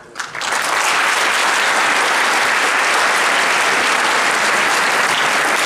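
Large seated theatre audience applauding, the clapping swelling up within the first half second and then holding steady and dense.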